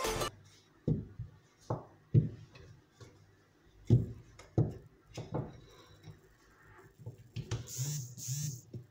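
Wooden rolling pin rolling out tortilla dough on a granite countertop: a series of irregular knocks and bumps as the pin is pushed over the dough and set down. Two brief rustling sounds near the end.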